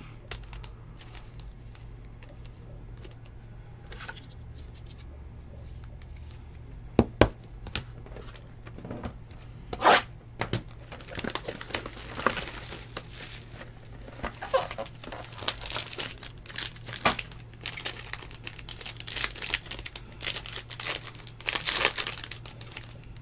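Hands handling trading cards, with a couple of sharp clicks, then a card box being opened and its foil wrapper torn and crinkled in a long run of tearing and crackling over the second half.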